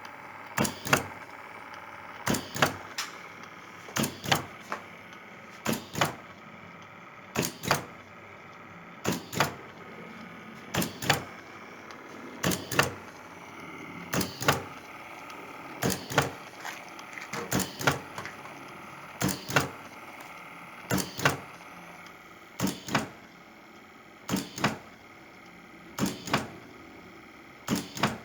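Motor-driven mechanism of a low-cost mechanical ventilator prototype cycling under test: a pair of sharp clicks about every 1.7 seconds, over a steady motor whir.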